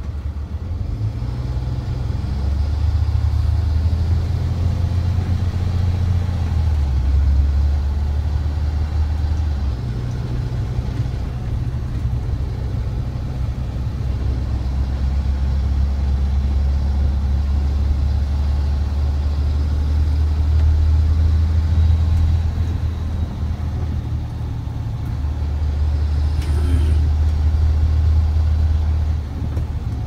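Car engine and tyre noise on a snow-covered road, heard from inside the cabin: a steady low drone that shifts in pitch several times as the car speeds up and slows down.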